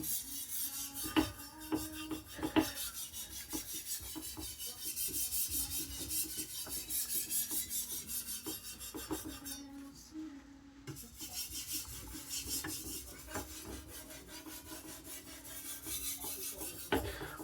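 Carbon-steel Chinese cleaver blade stroked back and forth on a whetstone with light pressure, only the weight of the blade, giving a quiet, repeated rasping scrape.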